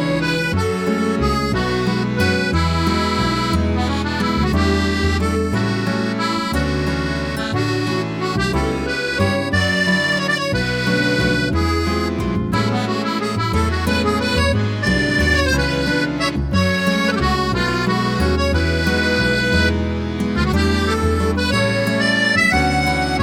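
Background music with an accordion-like melody over a moving bass line.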